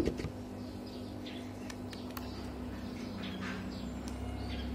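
A sharp knock right at the start, then a few short, faint bird chirps over a steady low hum.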